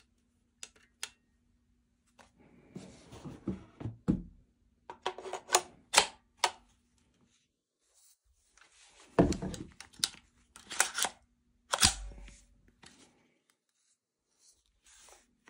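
GBLS DAS M4A1 airsoft rifle and its magazine being handled: a series of sharp clicks and knocks of hard parts, with rustling and a few heavier thuds.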